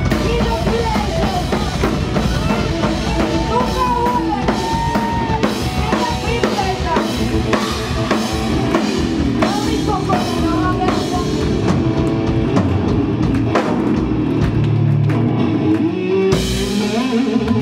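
Live metal band playing loud: a pounding drum kit with bass drum, distorted electric guitars and a woman's singing. A loud crash washes over everything about a second before the end.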